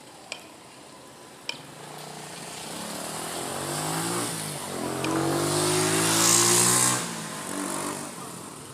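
A motor vehicle's engine goes by, getting louder for several seconds and then falling away sharply about seven seconds in. A few sharp clicks come before it.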